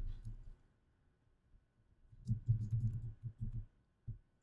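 Typing on a computer keyboard: a quick run of keystrokes about two seconds in, and a single tap near the end.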